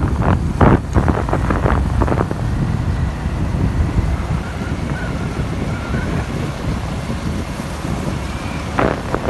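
Wind buffeting the microphone of a moving vehicle on a road, over the vehicle's low, steady rumble.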